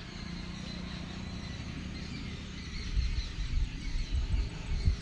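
Birds chirping against a steady outdoor background. From about three seconds in, an irregular low rumbling noise comes in and is the loudest thing.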